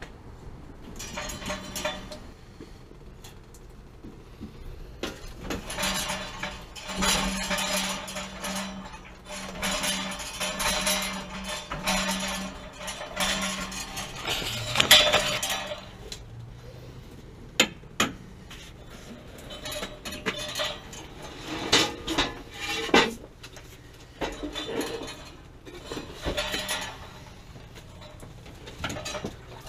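Metal clattering and clanking in irregular bursts, with a few sharp single clinks, as tools and equipment are handled and moved.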